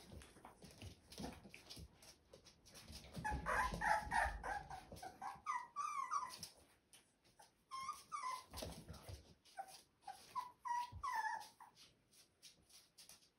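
Young Rottweiler puppies whimpering in short, high, wavering whines, in bouts about three seconds in, around eight seconds and near eleven seconds. A low rumble sits under the first bout.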